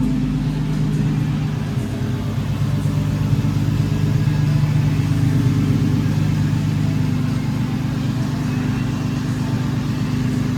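Nissan 350Z's VQ35DE 3.5-litre V6 running steadily while the car is driven, an even engine drone with little change in pitch. The engine runs smoothly on its newly replaced timing chains.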